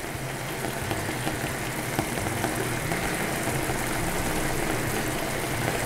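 Sliced peppers and tomato cooking gently in a pan over a gas burner, a steady sizzle with a low, even hum underneath.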